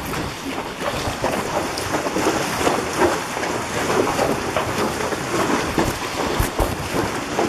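Horses wading through a shallow creek, their hooves splashing the water in a continuous run of uneven splashes.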